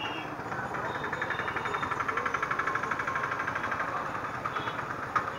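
A small engine idling with a rapid, even pulse, over a steady hum of street traffic. The pulse is strongest in the first half and then fades.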